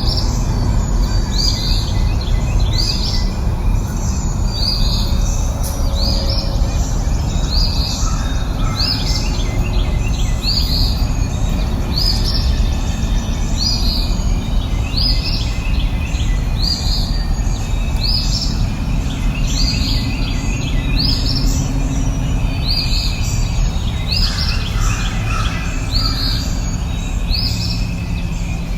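A songbird repeating a short, high call about once a second, with a few fainter, lower calls from other birds, over a steady low rushing background noise.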